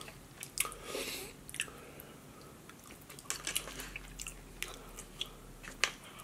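Close-miked chewing of a mouthful of burrito bowl and tortilla chips, with scattered crisp crunches and mouth clicks.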